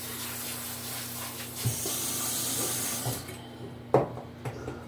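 Water running from a kitchen tap into the sink, the flow growing stronger partway through and then shut off abruptly. A sharp knock follows, with a few lighter knocks after it.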